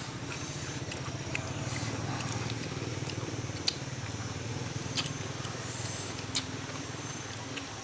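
Crab being eaten: several sharp, separate cracks of shell being bitten or broken, spread irregularly over a steady low hum.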